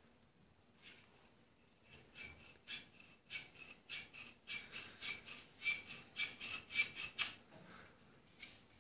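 Parts of a wooden replica rifle rubbing and squeaking against each other and under the hands as it is handled: a run of short scraping strokes, about two a second, starting about two seconds in and stopping near the end.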